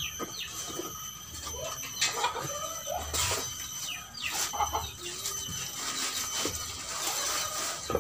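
Chickens clucking and squawking in short calls throughout, with a couple of brief bursts of rustling noise.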